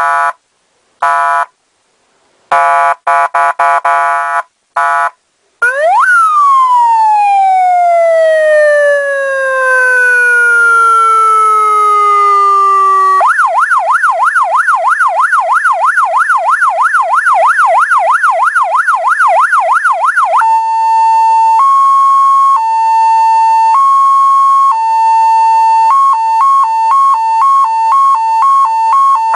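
Electronic police siren with a 50 W PA speaker, stepping through its tones. First come short, choppy horn blasts. About six seconds in, a tone shoots up and slides slowly down like a wail. About thirteen seconds in, a fast yelp sweeps up and down about three times a second. From about twenty seconds in, a two-tone high-low alternation plays, switching faster near the end.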